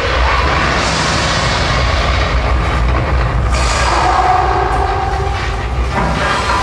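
Simulated subway train of a theme-park earthquake ride, with a loud, steady low rumble and rattle of the moving car. A held horn-like tone sounds for about a second a little past halfway.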